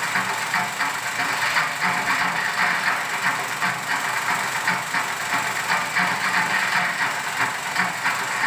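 35mm film projector running: a steady, rapid mechanical clatter with a hiss.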